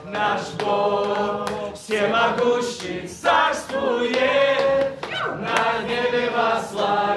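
A group of people praying aloud together, many voices overlapping in loud, chant-like phrases of a second or two each.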